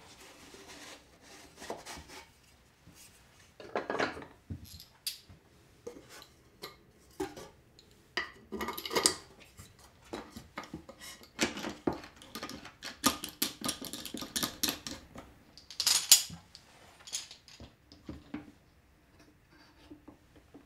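A wooden fence being shifted on an MDF router table and fastened with a star knob and a metal clamp: irregular knocks, clicks and scrapes of wood and metal hardware, with a busier clatter in the middle.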